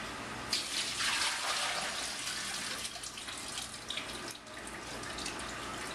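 Water being poured off softened, soaked corn husks, splashing and running. It starts about half a second in, is heaviest over the next second or so, then thins to a lighter pour.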